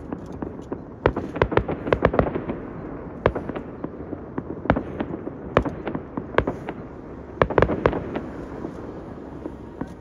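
Fireworks exploding overhead: a rapid, irregular string of bangs and cracks, thickest a second or two in and again about three-quarters of the way through.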